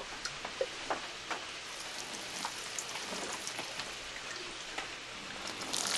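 Water sprinkling from a watering can onto a planted shrub and its soil: a steady patter of drops with many small splashes, a little louder near the end.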